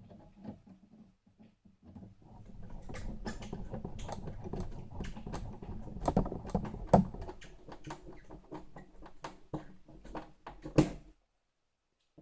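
Hand tools working on a door-handle fitting: a dense run of small clicks, taps and scrapes, with sharper knocks about halfway through and again near the end, then it stops abruptly.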